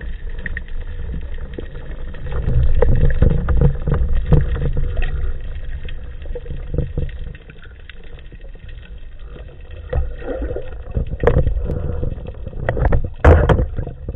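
Underwater sound picked up by a camera housing fixed to a speargun while the diver swims: a steady low rumble of water moving over the housing, with scattered clicks and knocks, the loudest cluster near the end.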